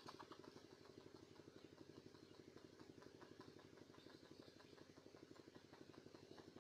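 Faint small engine idling, a steady rapid even pulsing.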